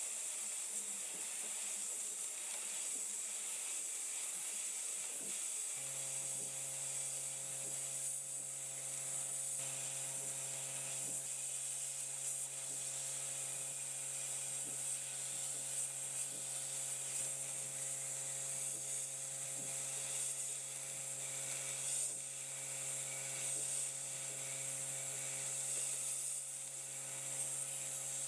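Sandblast cabinet gun blasting abrasive against a rusty sheet-steel toy part, a steady high hiss of air and grit stripping rust and paint to bare metal. About six seconds in, a steady motor hum starts and carries on under the hiss.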